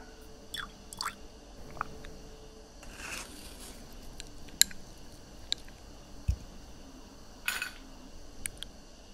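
Close-up liquid and glassware sounds: water dripping and plopping, a short pouring hiss about three seconds in, then scattered sharp clicks and clinks of ice cubes against a drinking glass.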